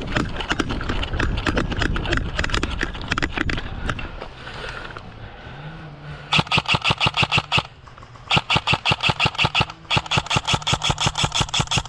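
Airsoft electric gun firing three full-auto bursts: rapid, evenly spaced clacks over the steady whir of its gearbox motor. The last burst runs past the end. Before the bursts, a few seconds of rough rustling noise.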